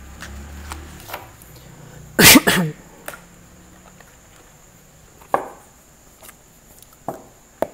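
Tarot cards being gathered up off a cloth-covered table and squared into a deck: a loud, brief clatter of cards about two seconds in, then a few sharp taps later on.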